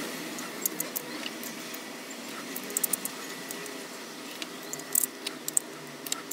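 Scattered light metallic clicks and taps of Kawasaki ZX130 clutch plates, steel and friction in turn, being fitted by hand into the clutch hub, with a small cluster around the middle and another near the end.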